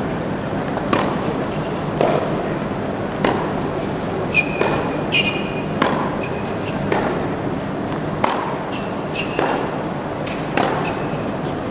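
Tennis ball being struck by a racket and bouncing on a hard court in a rally, sharp pops about once a second with a short echo. Short squeaks of tennis shoes on the court come between the hits, clearest near the middle.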